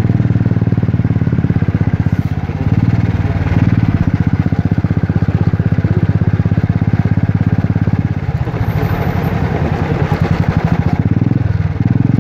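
Single-cylinder Royal Enfield motorcycle engine thumping steadily under way, heard from the rider's seat, with brief dips in the engine note a few times, about two and a half, eight and eleven and a half seconds in.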